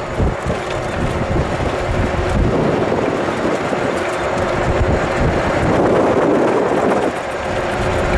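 Helicopter engine and rotor running, a steady loud noise with a faint steady hum, and wind buffeting the microphone unevenly.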